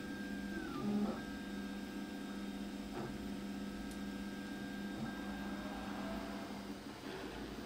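3D printer running, its stepper motors whining as the print head traces an outline, the pitch holding, stepping and gliding with each move over a steady low hum.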